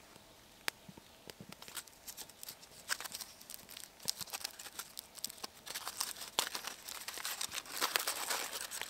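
Aluminium foil crinkling and crackling as it is unwrapped by hand: a run of sharp crackles, sparse at first and thickest and loudest near the end.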